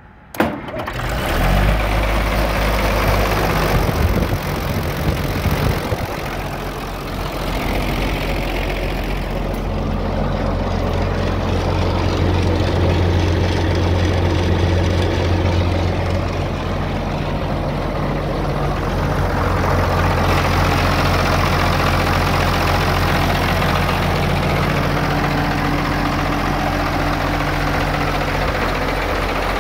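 Case 930 tractor engine starting up within the first second or so, then running steadily at idle.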